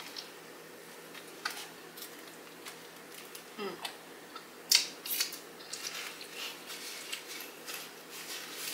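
Close-miked chewing of a bite of toasted sub sandwich: scattered wet mouth clicks and small crackles of the crusty bread, with one louder click about five seconds in.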